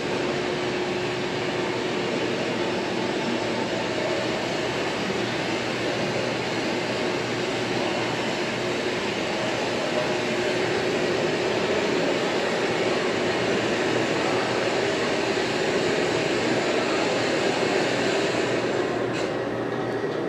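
Steady, even rushing background noise of a large exhibit hall, like ventilation, with a faint low hum running under it.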